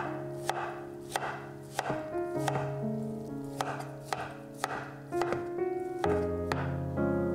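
Chef's knife slicing soft cooked squash and knocking on a wooden cutting board, about a dozen uneven strokes at one or two a second, with background music playing.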